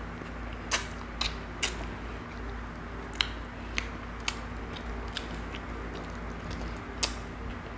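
Close-miked eating sounds of a person chewing and sucking meat off a tilapia head by hand: a dozen or so short, sharp wet mouth clicks and smacks scattered irregularly over a faint low hum.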